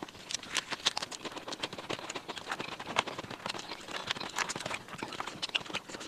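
Close-miked eating sounds: chewing with wet mouth clicks and small crunches, irregular, several a second.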